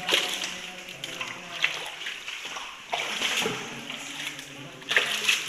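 People wading through shallow cave water in flip-flops: irregular splashing steps, with louder splashes about every second and a half.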